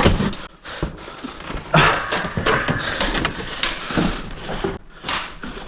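Irregular knocks, scrapes and rustling of hands-on work in a small room.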